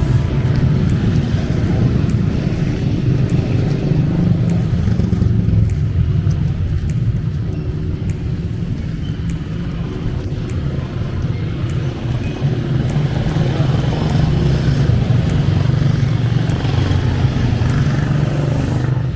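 Street traffic: motorcycles and motorcycle tricycles running past, a steady low engine sound.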